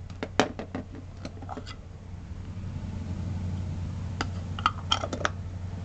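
Plastic Vaseline jar handled on a desk as its lid is taken off: a quick run of small clicks and taps in the first couple of seconds, then another cluster of clicks about four to five seconds in, over a steady low hum.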